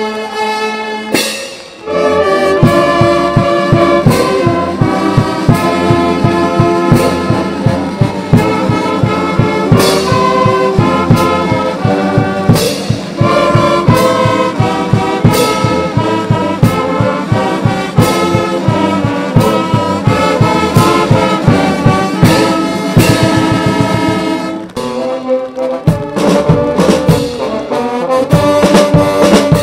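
Uniformed brass band playing: trumpets and larger brass horns sound held chords over a steady bass-drum beat. The full band comes in about two seconds in, and it eases off briefly near the end.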